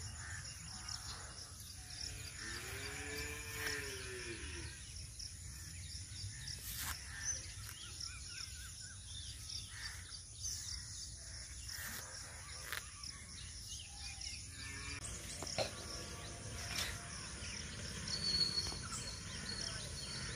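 Quiet outdoor ambience with a long animal call that rises then falls about two seconds in, and a weaker call about three-quarters of the way through. Scattered small clicks and rustles come from cloth being knotted around a tree trunk.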